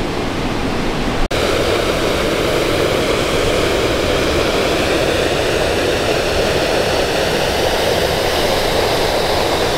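Steady roar of rushing water from a tumbling mountain waterfall, briefly cutting out about a second in.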